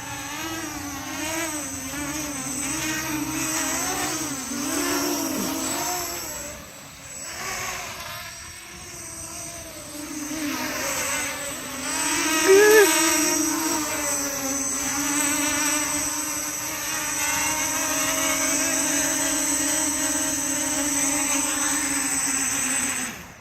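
Brushless motors and propellers of a 280 mm FPV quadcopter whining in flight, the pitch wavering up and down with throttle. There is a brief louder peak about halfway through.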